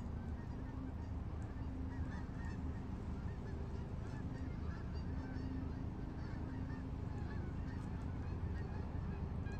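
Geese honking over and over, many calls overlapping, against the steady hiss of falling rain.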